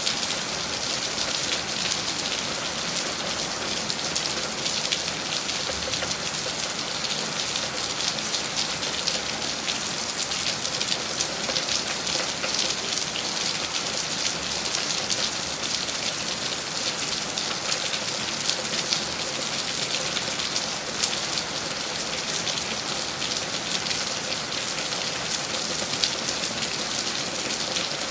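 Steady rain falling, a dense, even patter of drops hitting a surface.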